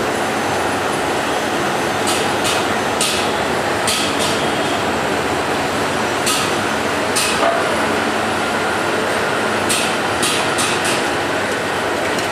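Steady, loud workshop noise, with about ten short, sharp taps scattered through it, several coming in quick pairs or threes.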